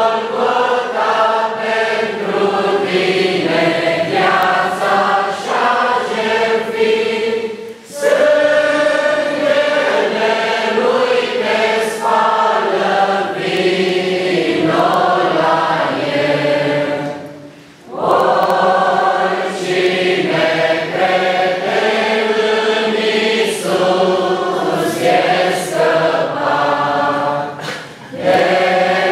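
A church congregation of women and men singing a hymn together, in long sung lines with short pauses for breath about 8 and 18 seconds in and again near the end.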